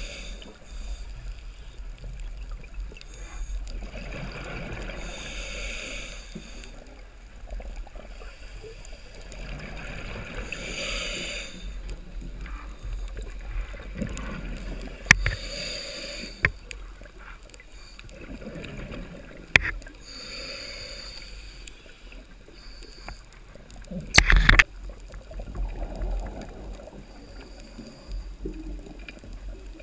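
Underwater sound picked up by a camera in its waterproof housing: a steady low rush and hiss of water, with a hissing burst of bubbles every five seconds or so. A few sharp clicks and knocks come through, the loudest about 24 seconds in.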